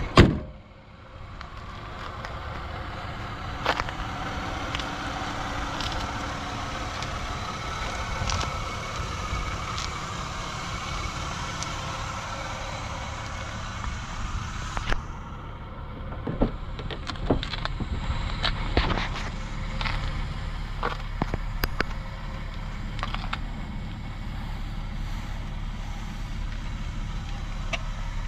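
A 1994 Lexus ES300 running with steady engine and road noise, its 3.0-litre V6 underneath. There is a loud thump right at the start and scattered light knocks and clicks later on.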